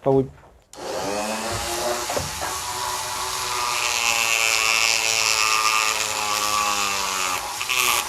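Electric rotary tool (engraver) with a flexible shaft switching on just under a second in, spinning up and then running steadily with a bit cutting into wood.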